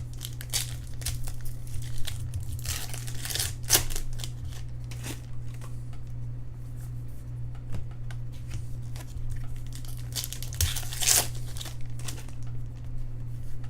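Baseball card pack wrappers being torn open and crinkled, with the rustle and clicks of cards being handled; two longer tearing sounds, about three seconds in and near the end. A steady low hum runs underneath.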